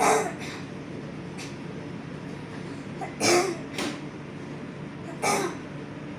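A child coughing in short bursts, three times, the middle one followed by a smaller second cough: the child's allergic cough.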